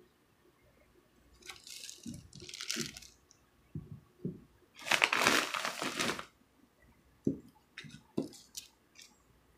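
Parchment paper crinkling under a whole watermelon as it is shifted, in several bursts, the longest and loudest about five seconds in, with dull knocks of the melon against the table between them.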